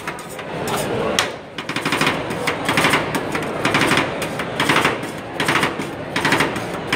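Two flat metal spatulas rapidly chopping and scraping rolled ice cream on a stainless steel cold plate. They make quick runs of metallic clatter with short pauses between.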